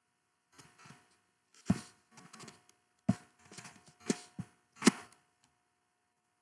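Typing on a computer keyboard: irregular keystroke clicks, a handful of sharper, louder strikes among softer taps.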